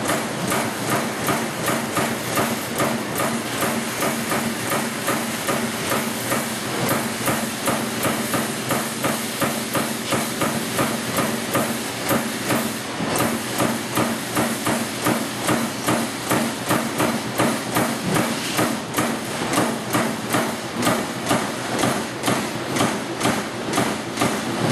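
Amada Pega 244 CNC turret punch press running, its ram hitting in a rapid, even rhythm of a few strokes a second over a steady machine hum.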